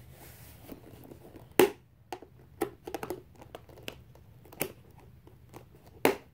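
Hands working at a cardboard toy box and its packaging: scattered clicks, knocks and crinkles, the loudest about one and a half seconds in, as the toy is pulled and pried at but won't come out.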